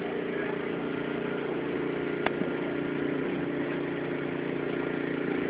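An engine idling steadily, a constant hum with one sharp click a little over two seconds in.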